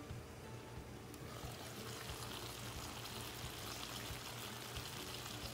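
Chicken masala cooking in a pan in its own juices with no water added, a faint steady sizzle that turns a little brighter about a second in.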